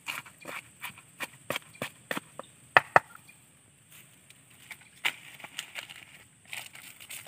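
Chopping: a run of sharp knocks, about three a second at first, with the two loudest strokes close together about three seconds in, then a pause and a looser cluster of lighter knocks near the end.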